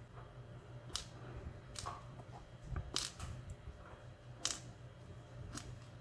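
Faint, scattered clicks of small metal lock pins and springs being tipped out of a lock plug into a plastic pin tray, about five sharp ticks at uneven intervals, over a low steady hum.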